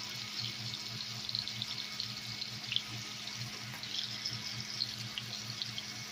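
Deer burger patties sizzling in butter in a cast-iron skillet: a steady hiss with scattered small pops and crackles.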